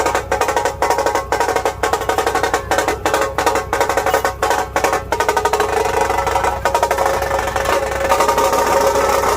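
Drum-led percussion music with fast, regular strokes. About six seconds in, the strokes fade under a steady, sustained drone.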